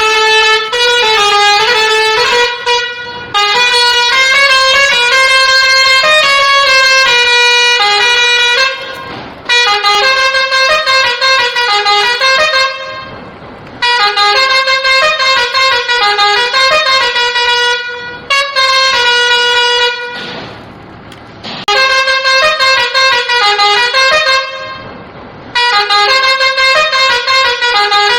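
A horn-like melody of stepped, held notes, played in phrases of a few seconds, with short whooshing gaps between the phrases.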